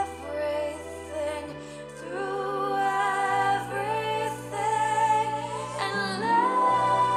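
Background music: a slow song with a woman singing long, held notes over sustained bass notes that change every second or two.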